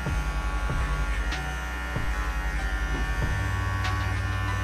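Cordless hair clippers with a half guard buzzing steadily as they cut a low fade line up the side of the head, with a few light clicks from the strokes. The hum's note shifts slightly a little past three seconds in.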